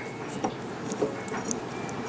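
A few light metallic clicks and taps of a 1/8 Allen wrench working the set screw in a Delta faucet handle, loosening it.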